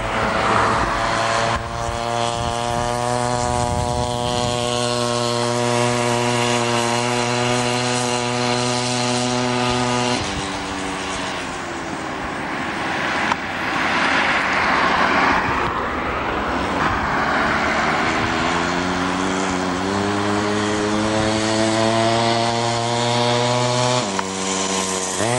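Homelite 240 chainsaw's two-stroke engine running at high, steady revs as it drives a bicycle through a spindle rubbing on the tire. Its pitch drops about ten seconds in, climbs back a few seconds later, and drops again near the end.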